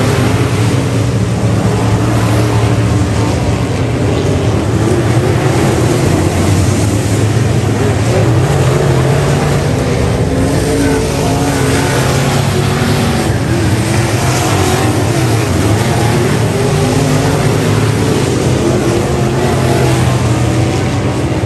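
Engines of several dirt-track race cars running at speed around the oval, a steady loud drone heard from the stands.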